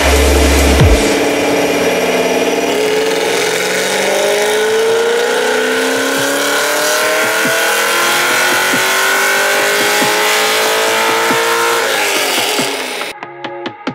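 C6 Chevrolet Corvette's V8 running under load on a chassis dyno in one long pull, its revs climbing steadily for about ten seconds, then lifting off near the end. A burst of electronic music ends about a second in, and music returns right after the engine dies away.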